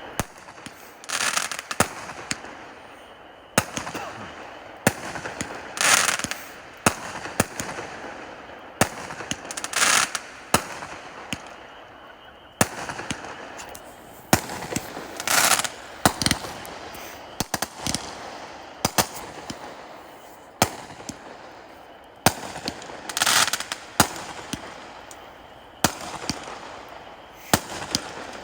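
Liberty Bell Fireworks 'Alluring Eyes' firework going off: a string of sharp shots and bangs, about one every second or two, over a steady hiss. Several bursts of crackling break out along the way.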